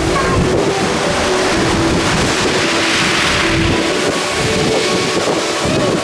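Wind buffeting the microphone over the wash of sea waves on a beach, with one wave surging up and falling back around the middle.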